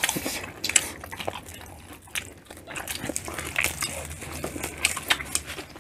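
Close-miked eating sounds: wet chewing, lip smacks and small irregular clicks as people eat a seafood boil with corn on the cob.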